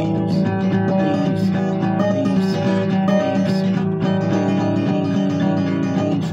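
Acoustic guitar playing a blues, strummed chords ringing under picked notes.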